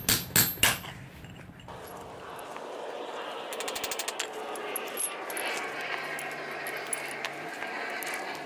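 A handful of sharp metal-on-metal strikes in the first second: a chisel hammered against the stuck old wheel-bearing inner race on a steel wheel hub to drive it off the hub shaft. After that comes a steadier rasping noise, with a quick burst of rapid ticks about four seconds in.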